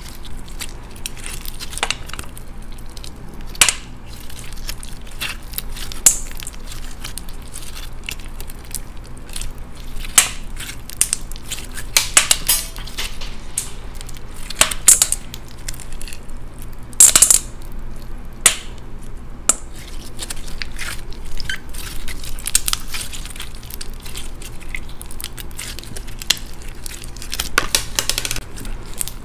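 Clear slime packed with plastic beads being squeezed and pulled by hand, giving irregular crackles and sharp pops, with loose beads dropping into a stainless steel bowl.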